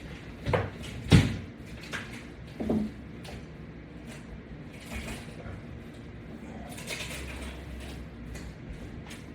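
A few separate knocks and clunks of exercise gear being handled, the loudest about a second in, with fainter ones scattered through the rest.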